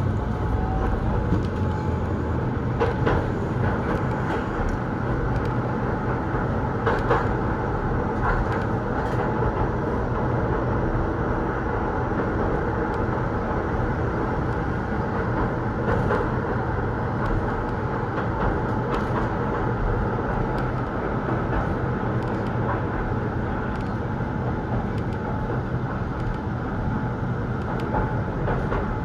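Keihan 800 series electric train running, heard from inside the car: a steady rumble of wheels and motors on the rails, with a few sharp clicks here and there.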